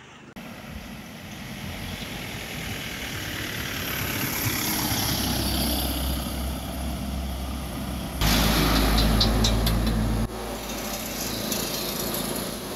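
Road traffic on a winding hill road: vehicle engines and tyres swell as a pickup truck goes by, then a louder low engine rumble starts and stops abruptly about eight and ten seconds in. A motorcycle and a lorry follow.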